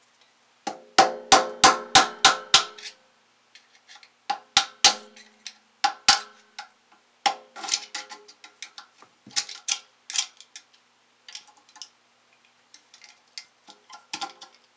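Hammer tapping a screwdriver set against the notched edge of the flat nut inside a water-pump pressure switch, driving it round to loosen it. A quick run of about seven sharp ringing metal taps about a second in, then single taps and small runs of lighter taps at intervals.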